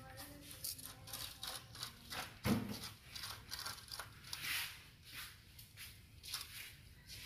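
Puppies licking and lapping yogurt out of thin plastic cups: repeated short scraping and licking strokes, about two a second, with the cups rustling and rubbing on concrete. A dull thump about two and a half seconds in.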